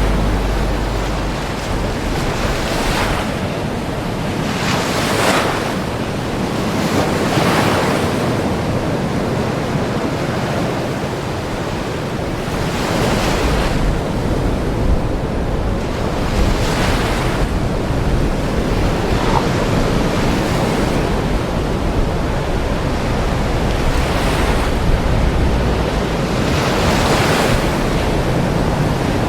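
Ocean waves washing in: a steady rush of surf that swells every few seconds.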